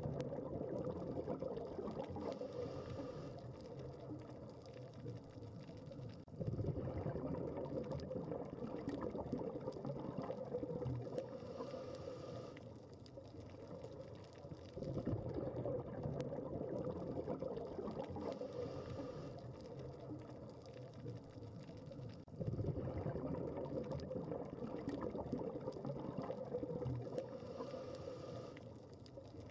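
Underwater bubbling and gurgling water noise. It surges louder in slow cycles about every eight seconds, with a brief high hiss in between.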